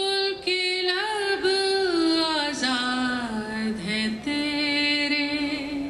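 A solo voice singing long held notes, gliding and stepping down in pitch through the middle and settling on a steady lower note, with a brief break for breath near the start.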